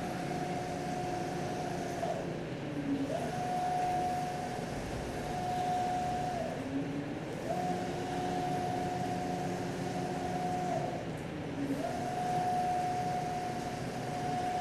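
Stepper motors of a DIY CNC router driving an axis back and forth: a steady whine that rises in pitch as each move starts and falls as it stops, four moves with a short pause between each.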